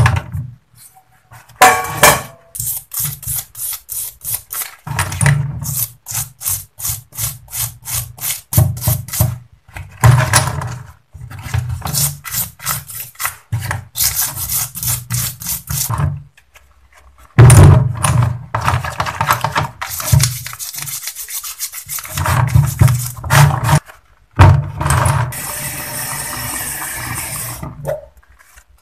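A brush scrubbing small metal oil pump parts in soapy degreaser, in quick rhythmic strokes of about three a second, with pauses between spells of scrubbing. Near the end comes a few seconds of steady rushing noise.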